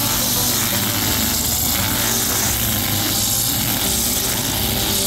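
Brush cutter engine running steadily while its nylon-line head cuts grass, the cutting noise swelling and easing about once a second as the head is swept back and forth.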